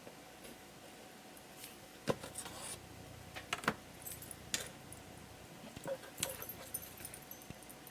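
Light, scattered clicks and taps of thin wooden organizer pieces being handled and fitted together, with a few sharper knocks about two, four and six seconds in.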